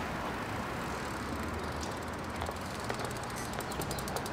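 Quiet outdoor street ambience: a steady hiss with a few faint clicks. In the second half there is a fast, even, light ticking.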